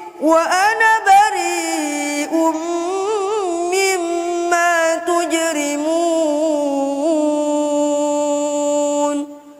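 A boy's voice reciting the Quran in a slow, melodic tilawah style, with ornamented wavering runs and a long held closing note that stops about nine seconds in, leaving a short echo.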